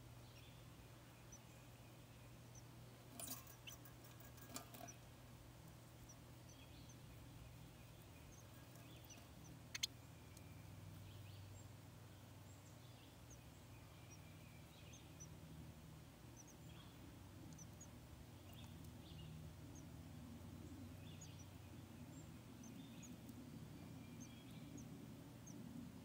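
Near silence broken by faint, very short high peeps scattered throughout, typical of wren nestlings begging in the nest, with a few soft clicks and one sharp click about ten seconds in.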